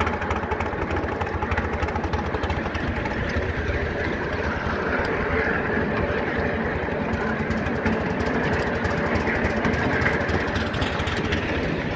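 Miniature 7.25-inch gauge Bagnall saddle tank steam locomotive under way, its exhaust chuffing in a rapid, even beat.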